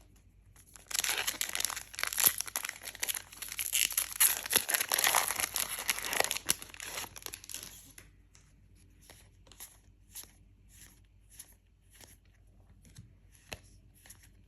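A foil booster-pack wrapper of trading cards being torn open and crinkled for several seconds. Then a run of soft, evenly spaced ticks about twice a second as the cards are flicked through one by one.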